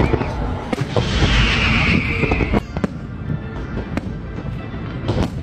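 Fireworks going off overhead: a string of sharp bangs at uneven intervals, with a loud burst of hissing crackle from about one second in to about two and a half seconds in.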